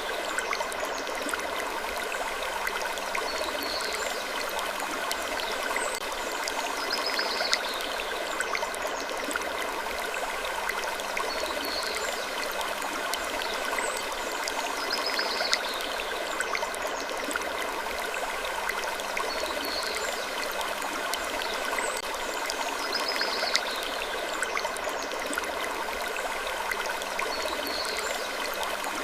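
Looped wood-creaking sleep ambience: a steady hiss with short, faint creaks recurring about every four seconds.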